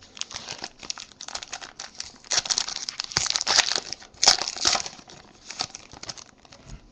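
A foil trading-card pack wrapper being torn open and crinkled by hand, a dense crackling rustle. It is loudest in the middle, with the sharpest crackle a little past four seconds in.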